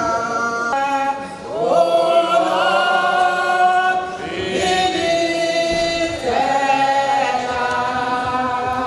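Unaccompanied group singing led by a woman's voice on a microphone, in long held phrases with short breaks between them.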